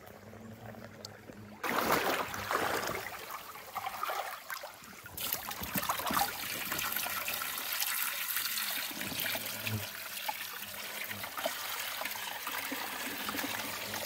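Water poured from a collapsible bucket into a small glass aquarium, splashing onto a gloved hand and the rocks inside. It starts suddenly about two seconds in, is heaviest for the first few seconds, then settles into a steady splashing trickle. The flow is broken over the hand so that the mud in the tank is not stirred up.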